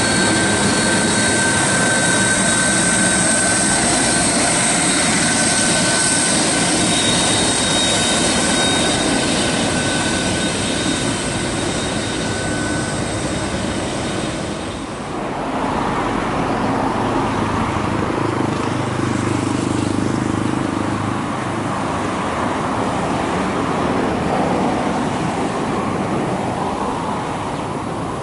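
Boeing 767-200 freighter's twin General Electric CF6-80A turbofans running at taxi power close by, with a steady high whine over the jet noise. About halfway through, after a cut, the sound turns lower and more distant, without the high whine, as the aircraft moves on the runway.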